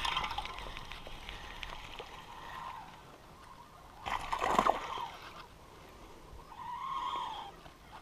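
Water sloshing and lapping against a bass boat's hull, with a louder rush of water about four and a half seconds in.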